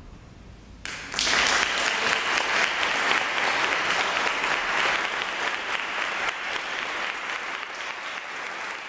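Audience applauding, breaking out suddenly about a second in and slowly easing off.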